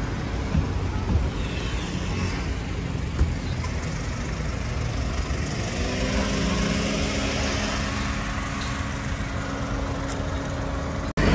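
Road traffic noise with a motor vehicle's engine hum that rises in pitch about halfway through and then holds steady.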